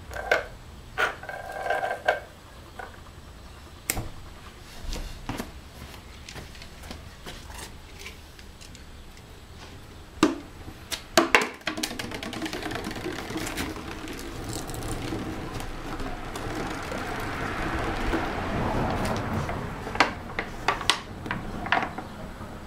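Fire burning in a small open tin can: a steady rushing noise that swells and then eases, with scattered clicks and a few sharp knocks, the loudest of them about halfway through.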